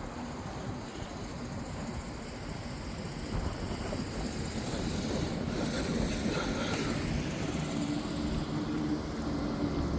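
Steady street traffic noise, vehicles driving past, with a low engine hum coming in near the end.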